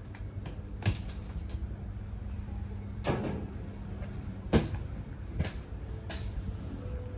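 Several sharp clunks and knocks at uneven intervals, over a steady low hum.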